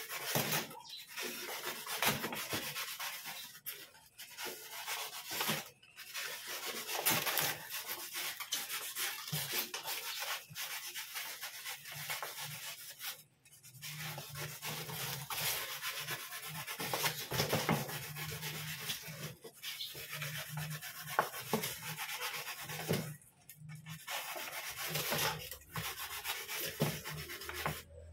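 Snap-off cutter blade drawn through a styrofoam (expanded polystyrene) sheet: a scratchy rubbing and squeaking in long strokes, broken by short pauses between cuts.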